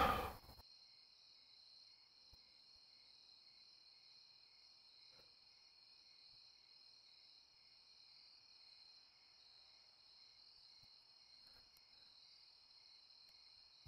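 Faint, steady chorus of crickets chirring, with a few soft ticks here and there.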